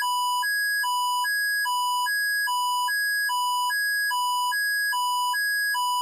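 Electronic emergency-alert tone: two pure beeps, a lower and a higher, alternating about every half second in an even, unbroken loop.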